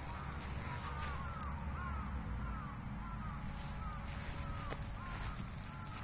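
Birds calling over a steady low rumble, a string of short arched calls about two a second.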